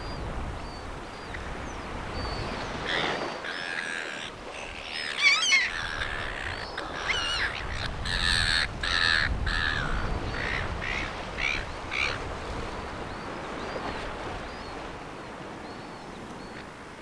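Birds calling: a run of harsh, repeated calls from about three to twelve seconds in, loudest at about five seconds. Faint, short high chirps from smaller birds and a low steady hiss lie underneath.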